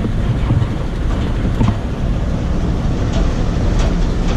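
1974 Ford F600 grain truck's engine running steadily as the truck drives along a dirt lane, heard from inside the cab, with scattered clicks and rattles from the cab.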